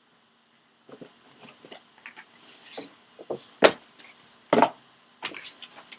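Sealed trading-card box being opened and handled: scattered light clicks and crinkles starting about a second in, two loud sharp snaps about a second apart near the middle, then a short burst of crackling.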